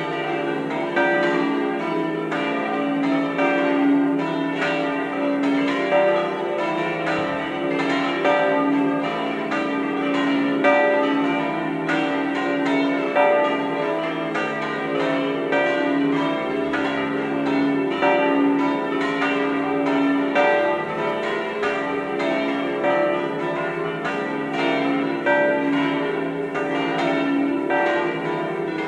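Peal of seven De Poli church bells, tuned from Re3 to Do4, swung full-circle with flying clappers in an Italian 'distesa'. The strokes overlap in a continuous dense peal with no pauses.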